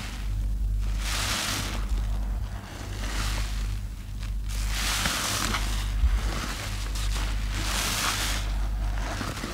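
Sponges soaked in soapy water squelching and sloshing as they are squeezed and rinsed in a plastic tub, the foamy hiss swelling with each squeeze every second or two.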